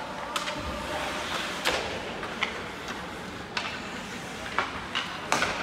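Ice hockey play in an indoor rink: a steady hiss of skates on the ice, broken by about half a dozen sharp clacks of sticks, puck and boards.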